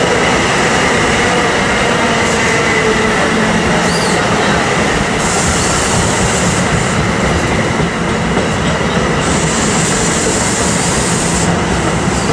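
NJ Transit bilevel passenger coaches rolling past at speed behind an electric locomotive: loud, steady wheel-on-rail running noise. Two stretches of high hissing come in, one about five seconds in and another about nine seconds in.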